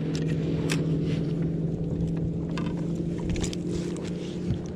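Boat motor running steadily with an even hum, with a few scattered light clicks and knocks.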